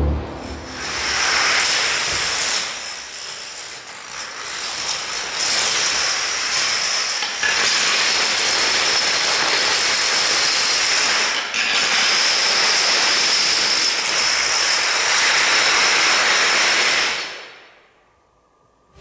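Plastic dominoes toppling in a long chain reaction: a dense, continuous clatter of thousands of small pieces with a few brief dips. It dies away to near silence near the end.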